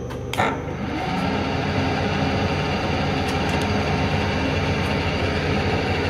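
Kearney & Trecker 2D rotary head milling machine running steadily, its motor and gearing giving a loud, even mechanical sound, with a sharp knock about half a second in.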